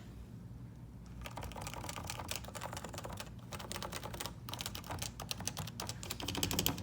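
Typing on a stock Topre keyboard, its electro-capacitive rubber-dome keys making fast clicks. The typing is sparse for about the first second, then runs on steadily.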